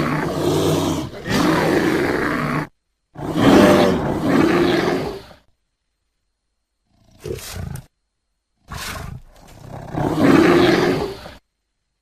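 Bear calls edited together as separate clips with dead silence between them. One call ends a little under 3 seconds in, a second lasts about two seconds, a short one falls in the middle, and a longer one comes near the end.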